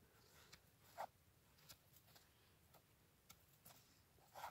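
Faint, irregular short scrapes and clicks of a Benchmade Puukko knife blade shaving wood off a stick, with several separate strokes, the clearest about a second in and near the end.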